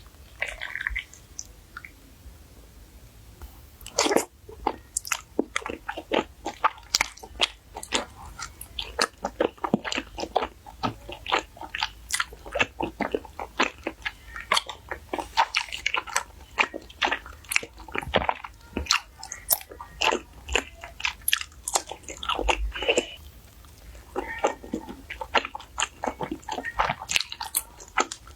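Close-miked chewing and eating of wide starch noodles in a runny sauce: a dense run of short mouth clicks and smacks, starting about four seconds in.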